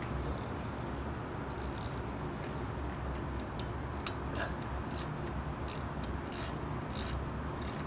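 Hand ratchet with a 1/4-inch drive 8 mm socket clicking in short irregular strokes as it turns a brake pad retaining pin into a motorcycle's rear disc brake caliper.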